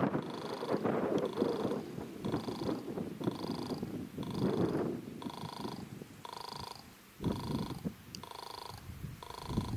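Level crossing warning signal sounding: a buzzing electronic tone in short pulses about once a second, starting as the red lights begin to flash for an approaching train. Wind rumbles on the microphone underneath.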